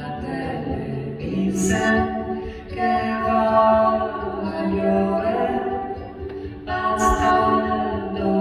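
A woman singing a slow song in long held notes, accompanied by acoustic guitar, played live on stage.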